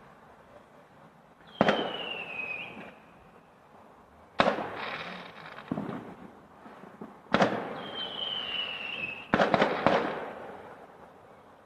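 Distant aerial fireworks going off: four sharp bangs about three seconds apart, each trailing off into an echoing rumble, the last one a rapid cluster of several cracks. Twice a falling whistle sounds between the bangs.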